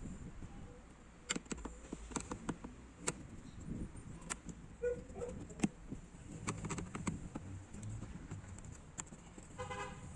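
Scattered clicks and knocks of hand work with a Phillips screwdriver on the plastic storage-trunk panels of a Yamaha Majesty 400 scooter, over a low steady rumble. A short pitched, pulsing sound comes just before the end.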